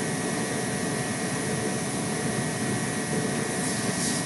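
Steady rush of compressed air blowing through a venturi aspirator, the air from a shop compressor at about 30 PSI, with a faint high whine riding on it.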